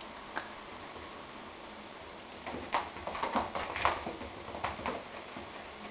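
A cat's paws scrabbling and skidding on the floor and rug as it pounces after a laser dot: a quick run of scuffs and taps lasting about two and a half seconds, starting a couple of seconds in.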